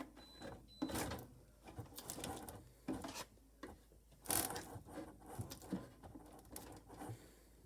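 Irregular clicks, knocks and rattles of hand work on a wall-mounted burglar-alarm keypad as it is fitted and levelled, with a sharper click about four seconds in.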